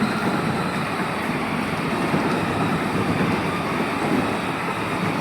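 Power Wheels Ford ride-on truck driving: a steady whir from its electric drive motors and gearboxes, with its plastic wheels rolling. The adult asks whether its battery is almost dead.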